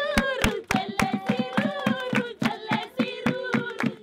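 Group singing with steady rhythmic hand clapping, about four claps a second.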